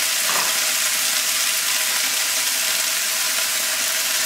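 Chanterelle mushrooms frying in a little sunflower oil in a pan: a steady, even sizzle.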